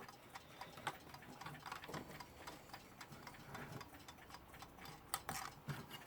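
Mechanical Weltime alarm clock ticking quietly as it runs, with a few louder clicks among the ticks.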